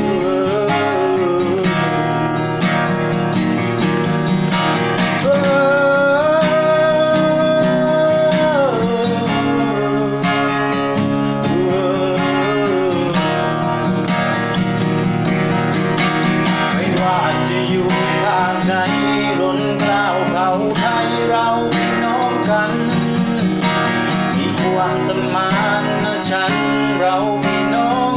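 Music: a strummed acoustic guitar with a melody line carried above it, including one long held note partway through.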